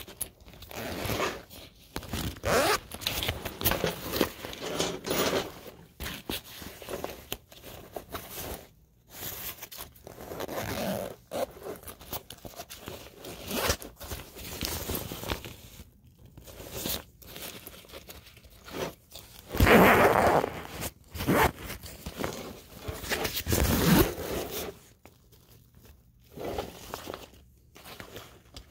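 Zippers on a nylon hiking backpack being pulled open and shut by hand, over and over in irregular strokes, with fabric handling rustle between them. The loudest zips come about two-thirds of the way through.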